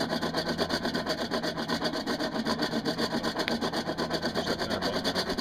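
Hand-cranked forge blower being turned steadily, a rapid rasping whir pulsing about seven times a second.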